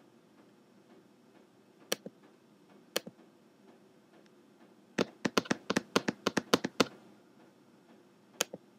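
Clicks on a MacBook Air's keyboard and trackpad: two single clicks, then a quick run of about a dozen key taps from about five seconds in, and two more clicks near the end.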